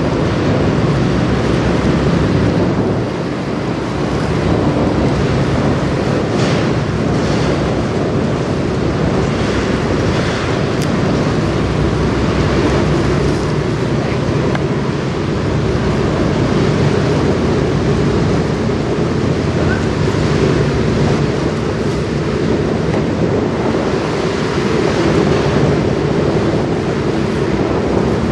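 Steady wind buffeting the microphone over choppy river water, with a low steady engine drone from a passing pusher tug and barge.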